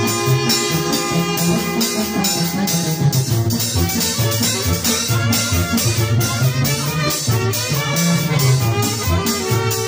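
Live orquesta playing Latin dance music: horns holding notes over a pulsing bass line and a steady percussion beat.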